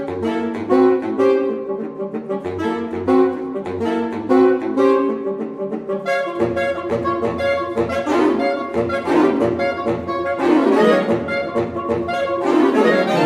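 A saxophone quartet of soprano, alto, tenor and baritone saxophones playing contemporary concert music. Short, rhythmic detached notes over a low baritone line give way, about six seconds in, to fuller playing with repeated sweeping glides in pitch.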